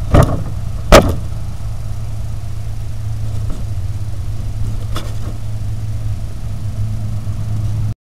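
Steady low electrical hum of a trail camera's recording, with two sharp knocks near the start and a fainter one about five seconds in as a badger foraging right against the camera bumps it.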